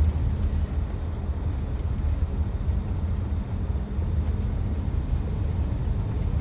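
Steady, low rushing roar of a waterfall, Soco Falls, heavy in the bass and unbroken.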